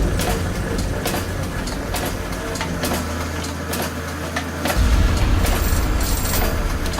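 Royal Enfield Classic 350's single-cylinder engine running, with sharp mechanical ticks scattered through its steady low beat. It runs louder for a couple of seconds just past the middle.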